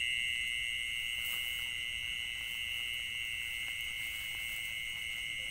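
Steady insect chorus: an unbroken, high-pitched shrill drone that holds constant throughout.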